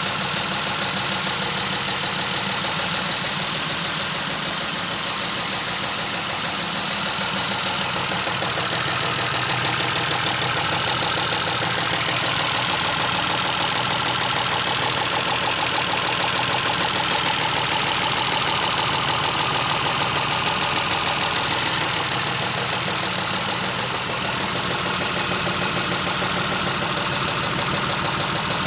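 Chrysler LHS 3.5-litre V6 engine idling steadily with a knocking clatter that makes it sound like a diesel.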